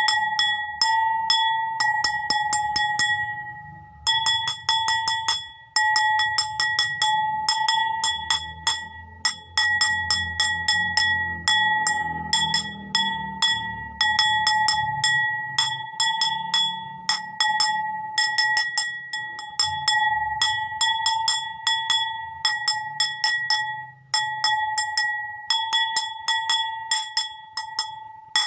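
A bowl struck over and over in quick runs of taps with short pauses between. Each tap rings on at the same steady pitch.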